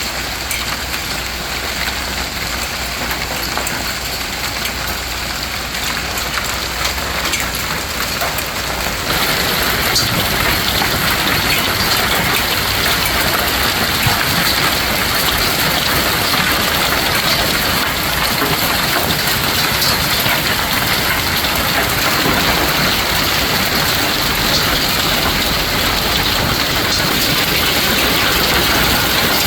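Hail and rain falling hard: a dense, steady patter of many small impacts, which grows louder about nine seconds in.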